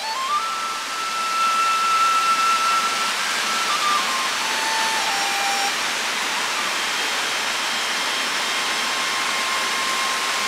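Steady rushing of a waterfall. Over it a bamboo flute plays a long held note, then a few falling notes that fade out about halfway, with a faint held note near the end.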